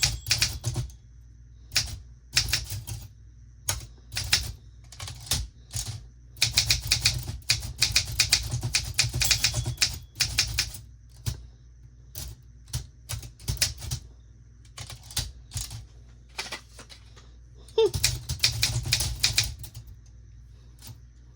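Olympia SM9 manual typewriter being typed on: runs of quick key strikes broken by pauses, the longest run about six to ten seconds in and another near the end.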